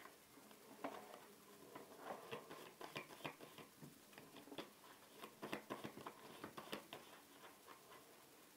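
Faint clicks and soft flicks of a deck of playing cards being handled, several small snaps a second, dying away shortly before the end.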